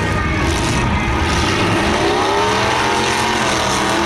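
Demolition derby car engines running loud and revving, their pitch rising and falling over a heavy rumble.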